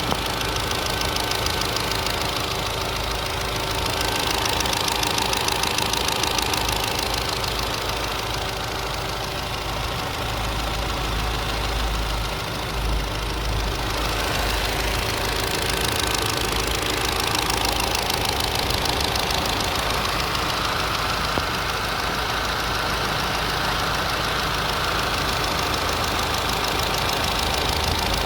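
1.8 TFSI CJEB four-cylinder turbocharged petrol engine running with a steady, rapid clacking ("Klackern") that the owner cannot explain and is worried about.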